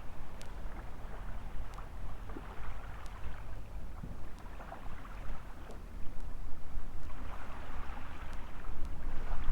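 Small waves washing on a sandy beach, the surf noise swelling and falling back every few seconds, with wind rumbling on the microphone and a few faint sharp ticks.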